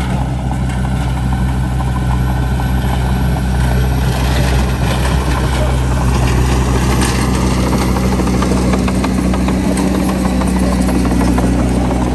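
Small crawler bulldozer's diesel engine running steadily under load as it pushes soil with its blade, growing slightly louder about four seconds in.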